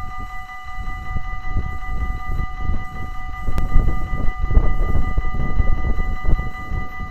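Level-crossing warning bell ringing steadily, with the barriers down for an approaching train. Under it a low, uneven rumble grows louder from about a second in.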